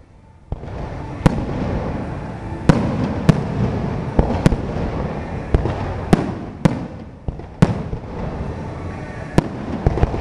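Aerial fireworks shells bursting in quick succession. After a brief lull at the start there are about ten sharp bangs, one every half second to second or so, over a continuous rumble between them.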